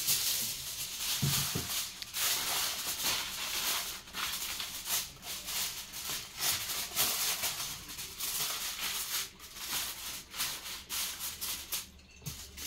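Aluminium foil crinkling and rustling as it is pulled off the roll and smoothed over a baking tray.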